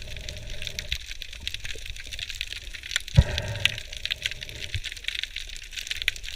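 Underwater ambience picked up by a submerged camera: a steady crackle of many faint clicks, with a short rush of water about three seconds in.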